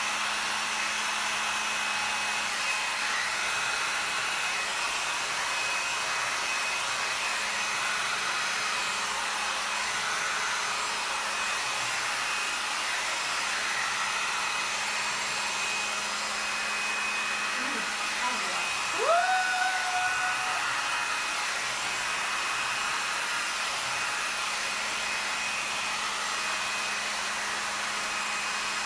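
Handheld hair dryer running steadily, its airflow blown onto wet poured acrylic paint to push it across the canvas. A constant rushing hum with a thin high whine from the motor.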